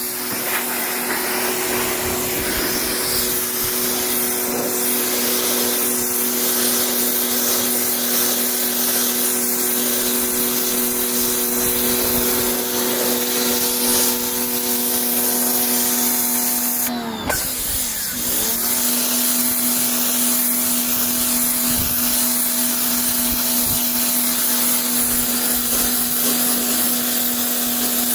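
Battery-powered pressure washer running steadily, a motor whine over the hiss of the water jet. About 17 seconds in the motor briefly winds down and spins back up, as the trigger is let go and squeezed again.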